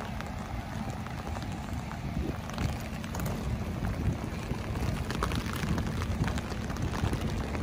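Rain falling, with scattered sharp drop hits over a steady low rumble.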